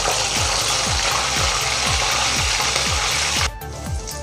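Salt-stuffed green chillies deep-frying in hot oil in a kadai: a loud steady sizzle that drops off suddenly about three and a half seconds in, leaving a fainter sizzle.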